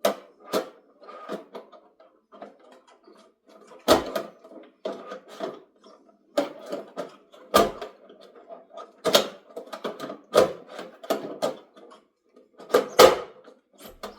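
Hard plastic parts of an RC crawler clicking, knocking and rattling as they are handled and pressed into place, a part that is awkward to fit. Irregular sharp taps stand out several times, loudest about four seconds in and near the end.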